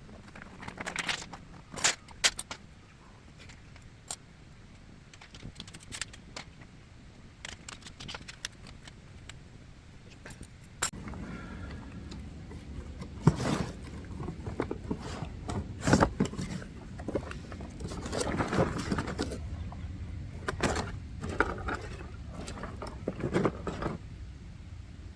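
Objects being handled: scattered sharp clicks and knocks with rustling, busier from about eleven seconds in.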